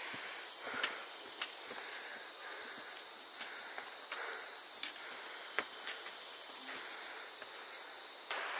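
Insects singing in a high-pitched buzz that comes in repeated pulses of about a second each, roughly six of them with short breaks between.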